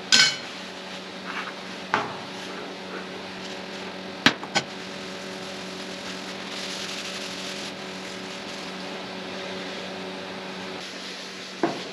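A steady low hum runs throughout. Over it come a few sharp knocks, two of them close together about four seconds in, and the soft rubbing of a paper towel working paste wax into a cast-iron table saw top.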